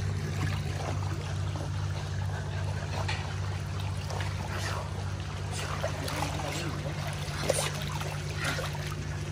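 Pool water sloshing and splashing as a chimpanzee and a person move about in it, over a steady low hum.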